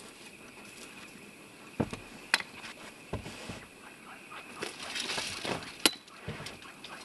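Hiking boots stepping over rock and through dry grass and brush: scattered knocks and a few sharp clicks, with rustling that is loudest about five to six seconds in.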